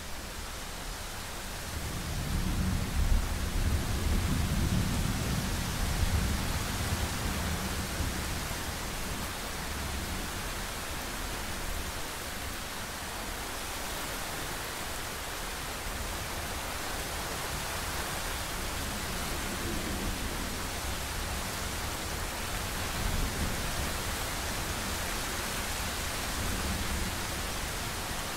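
Thunderstorm: steady rain hiss with rolling thunder. A long low rumble builds about two seconds in and fades over several seconds, and a weaker rumble comes near the end.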